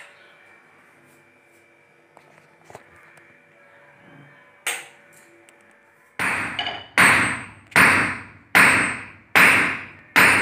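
Hammer blows on an iron rod held with pliers on an iron block, being straightened: six evenly spaced ringing strikes a little under a second apart, starting about six seconds in. Before them, a faint steady hum with a few light clicks and one sharp knock.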